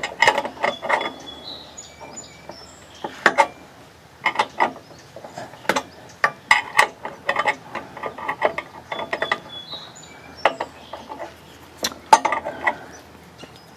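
Ratchet wrench with a socket on a 19 mm bolt, clicking in short irregular runs of strokes with small metal clinks between them.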